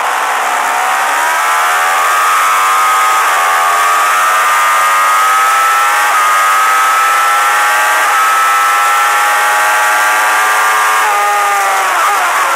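Suzuki GSX-R1000 inline-four race engine at high revs under acceleration, heard from the bike itself, its pitch climbing steadily with a few brief breaks, then falling and wavering near the end. A steady rush of wind noise runs underneath.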